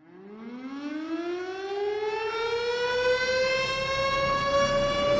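Siren-like wail that starts from silence and rises slowly in pitch while swelling in loudness: the opening effect of a Bollywood film song's soundtrack.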